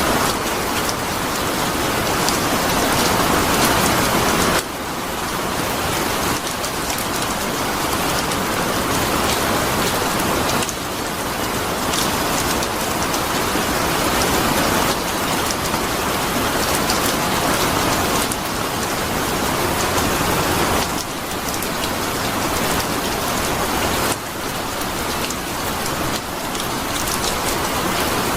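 Steady rain falling, an even rushing hiss, whose loudness drops sharply and then builds back several times.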